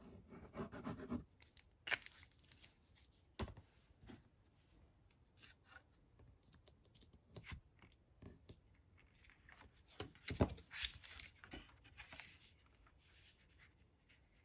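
Paper and card stock being handled on a tabletop: rustling and sliding, with several sharp taps and clicks, the loudest about ten and a half seconds in.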